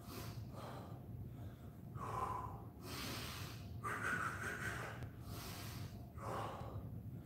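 A man breathing hard through the mouth, a string of heavy breaths in and out: catching his breath after an intense bodyweight exercise set.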